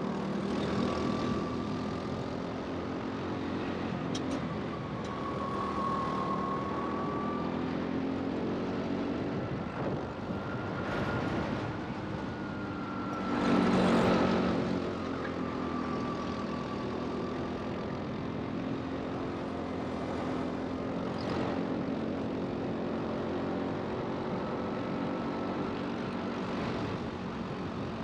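Rental go-kart's motor running under racing throttle, its pitch rising and falling as the kart speeds up and slows. About halfway through there is a brief, louder rush of noise.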